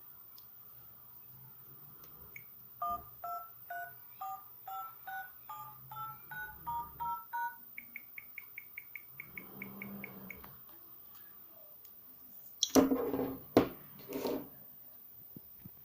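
Samsung mobile phone keypad playing touch-tone dialing beeps: about a dozen short two-note tones in quick succession as number keys are pressed, followed by a fast run of short high beeps. Near the end come a few loud clattering knocks, the loudest sounds.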